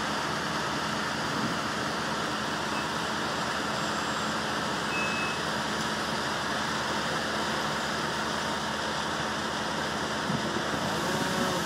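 An engine running steadily, a constant even noise without revving.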